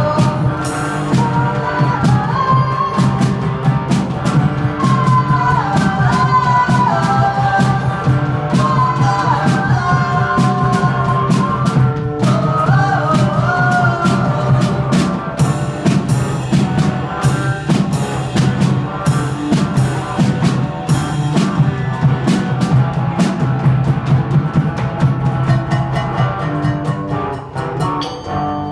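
Live acoustic guitar and drum kit playing a steady beat, with dense drum strokes and cymbal, under a wavering wordless melody line. Near the end the melody drops out and the playing gets quieter.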